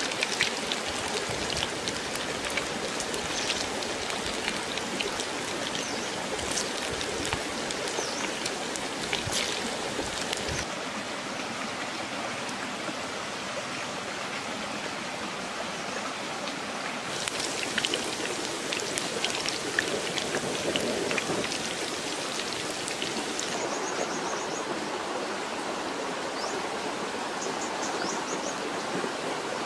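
Round fish balls deep-frying in hot oil in a wok: a steady sizzle with small spattering crackles, its tone changing abruptly a few times.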